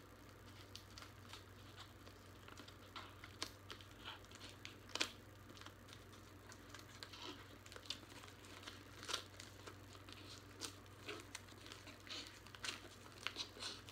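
Plastic shrink-wrap on a boxed set being picked at and torn open with fingernails: faint, irregular crinkling and crackling, with a few sharper crackles now and then.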